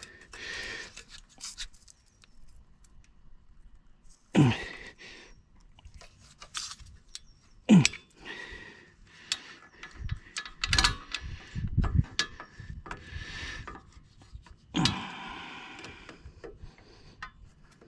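A small pick tool scraping, rubbing and clicking against the plastic ABS sensor wire pin as it is pried out of its bracket, with a few louder sharp scrapes or snaps; the pin is stiff and hard to remove.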